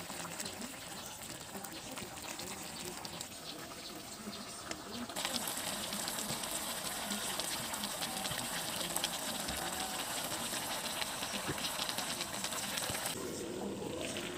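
A pot of squash simmering with a steady hiss, which grows louder about five seconds in and drops back near the end. Faint voices sit in the background.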